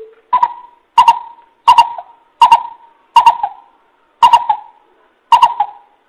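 Coucal calling: a run of seven short, evenly repeated notes, about one every 0.7 seconds.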